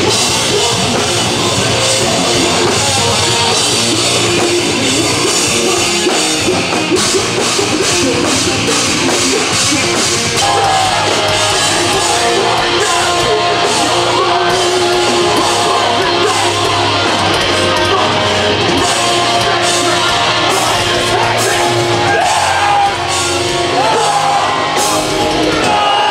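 Loud heavy metal music with drums, electric guitars and vocals.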